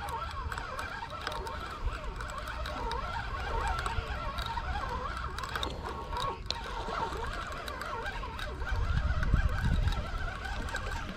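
Many birds chirping and calling, with a low wind rumble on the microphone that grows stronger near the end.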